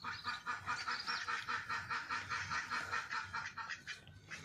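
Birds calling in a fast, continuous chattering run that stops about three and a half seconds in.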